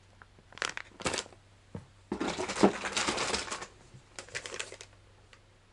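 Crinkling of a plastic soft-bait package being handled: two short rustles, then a longer stretch of crinkling about two seconds in, and another short rustle near the end.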